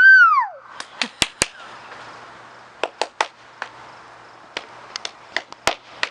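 Fireworks popping and crackling: about fifteen short, sharp cracks at irregular intervals, in small clusters, over a faint steady hiss.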